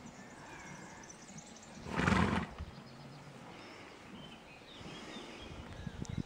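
A horse blows out once, a short noisy snort about two seconds in. Hooves shift on the soft dirt near the end.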